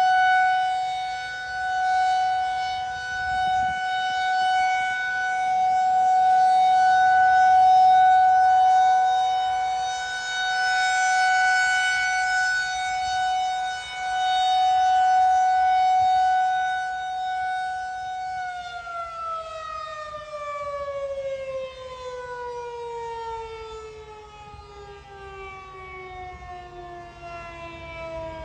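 Federal Signal 2001-SRNB rotating electromechanical warning siren sounding its steady Alert tone, swelling and fading in loudness every few seconds as the rotating head sweeps past. About 18 seconds in the motor is cut and the tone winds down, sliding steadily lower in pitch and fading.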